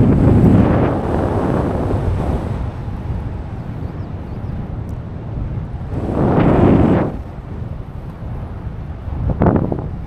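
Wind buffeting the microphone in gusts, strongest at the start, again about six to seven seconds in, and briefly near the end.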